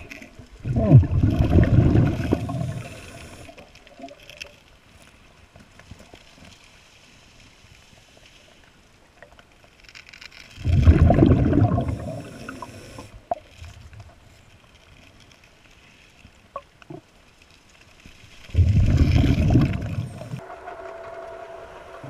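Scuba diver's regulator breathing underwater: three loud bursts of exhaled bubbles about eight seconds apart, with quiet stretches between them holding a few faint clicks.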